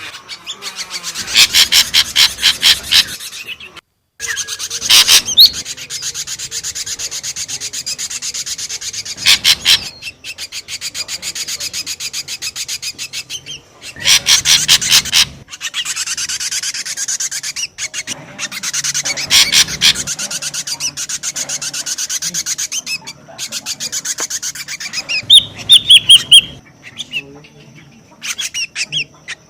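Ashy drongo calling: harsh, rasping chatter in loud bursts of rapid pulses every few seconds over a continuous scratchy buzz, with a few clear whistled notes near the end. This is the noisy ('ribut') call used as a lure for drongos.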